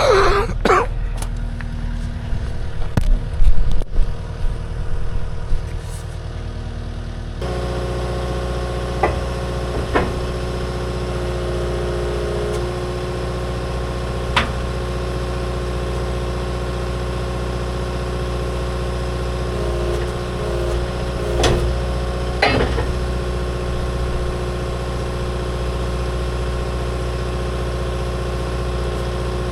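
Skid steer engine idling steadily, with a few metal clanks over it. Louder knocks and clatter come first, and the engine hum sets in suddenly about seven seconds in.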